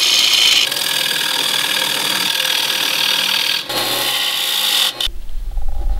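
Bowl gouge cutting the inside of a spinning maple bowl on a wood lathe: a steady hiss of shavings coming off the wood, with two short breaks. About five seconds in the cutting stops and a low rumble takes over.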